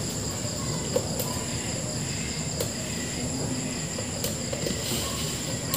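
Faint clicks and rustles of wire connectors being handled and plugged into an air conditioner's indoor control board, over a steady high-pitched background chirring.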